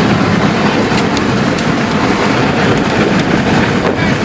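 Steady rush of storm wind, rain and road noise around a vehicle being driven fast, with scattered sharp ticks of things striking it.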